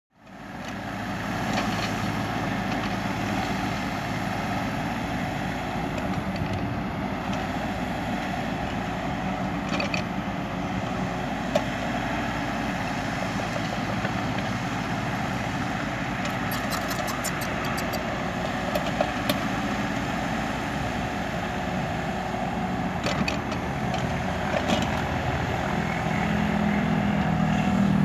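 Kubota U35 mini excavator's diesel engine running steadily while it works, with a few short clicks or clanks here and there. It grows louder near the end as the bucket is drawn through the soil.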